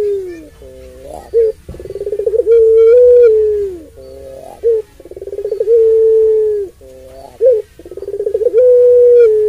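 A puter pelung, a ringneck dove kept for its long coo, calling over and over. Each call opens with a quickening stutter that runs into one long, steady coo that sags at the end, followed by a short rising double note. The long coos come about every three seconds.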